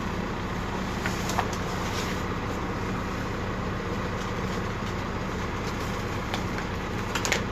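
Diesel engine of construction machinery running steadily at an even speed, with a few sharp clicks about a second in and near the end.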